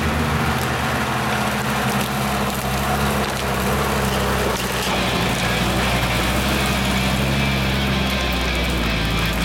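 Off-road vehicle's engine running steadily, with a continuous low drone.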